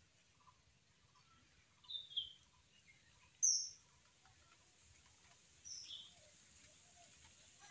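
Birds calling outdoors: a few short high chirps, two pairs and a single louder one about three and a half seconds in, over a faint steady background.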